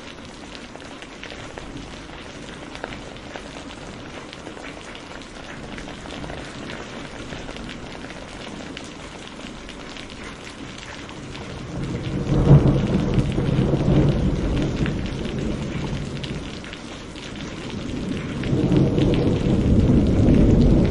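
Heavy rain falling steadily, with scattered drop ticks. About twelve seconds in a thunderclap breaks into a long low rumble that fades over several seconds, and a second roll of thunder builds near the end.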